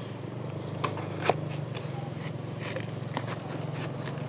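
A knife cutting through a yellow-fleshed watermelon: a string of crisp cracks and crunches from the rind and flesh, the two loudest a little under a second and about a second and a half in. A steady low hum runs underneath.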